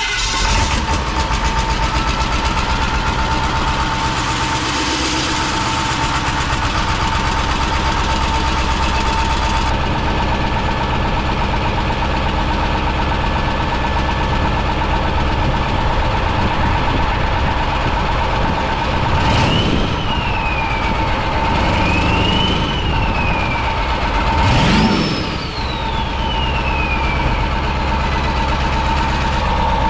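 Freshly rebuilt Ford 7.3 L Powerstroke V8 turbodiesel running on an engine stand just after its first start, with a steady whine over it. Its pitch rises and falls three times in the second half, the last rise the highest and slowest to fall.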